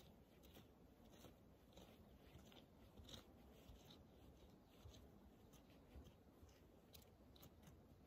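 Faint, irregular crunching and clicking of pieces of charcoal being handled and moved about in a fire pit.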